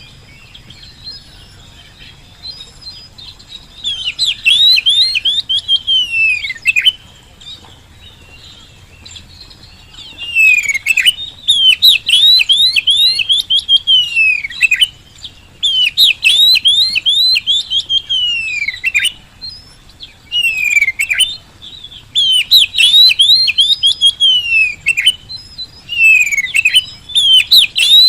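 Oriental magpie-robin (kacer) singing hard in bursts of fast, sweeping whistled notes, each phrase lasting a few seconds with short pauses between. The first few seconds hold only faint notes before the loud phrases begin.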